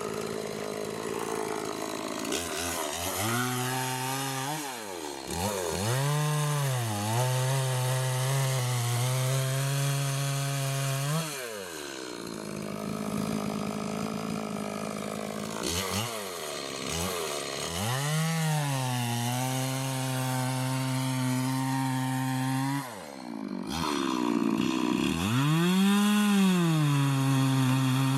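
Two-stroke chainsaw crosscutting a walnut log. The engine revs up, holds steady under the cut, and falls back between passes, dropping to idle about twelve seconds in and briefly again near the end before revving up once more.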